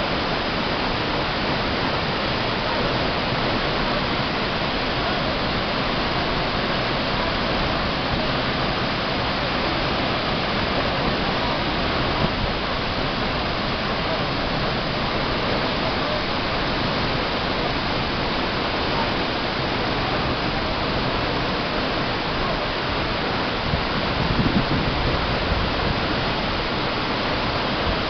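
Steady rush of water from a tall waterfall, about 80–90 m high, plunging into its pool. A brief low bump comes near the end.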